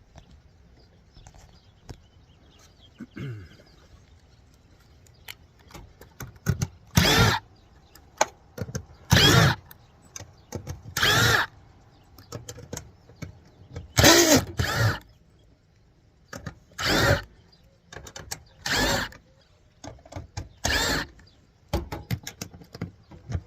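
Cordless drill running in short bursts of under a second, about every two seconds, its motor pitch rising and falling with each trigger pull.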